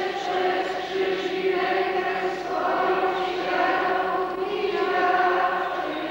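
Church congregation singing a slow hymn together, many voices on long held notes, fading near the end.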